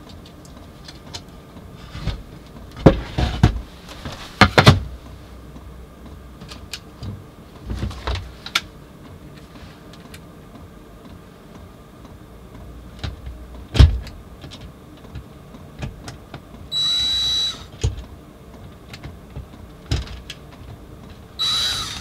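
Scattered knocks and clatter of hands handling wood, screws and a power tool, a few of them sharp and loud. Twice near the end, an electric drill's motor whirs for under a second as a screw is driven.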